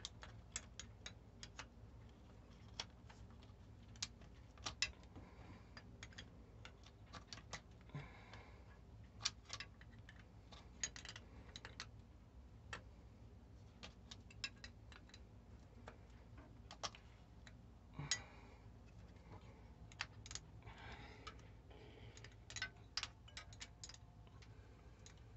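Quiet, irregular metallic clicks of a small open-end wrench being fitted, turned and refitted on a seized glow plug in a Westerbeke 12-D diesel's cylinder head, often several clicks a second. A faint steady low hum runs underneath.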